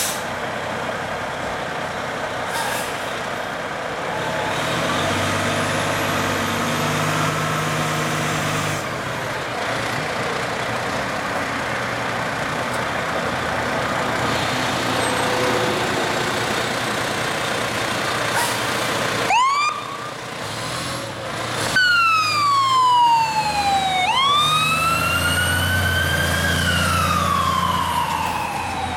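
Spartan Gladiator fire engine's diesel running as the truck pulls out, louder from about four seconds in. About two-thirds of the way through, its electronic siren starts with a few quick yelps, then slow wails that fall, rise and fall again.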